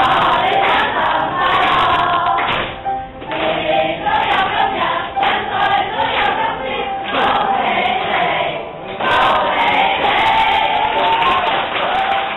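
A large group of teenage students' voices raised together, loud and continuous, many voices at once.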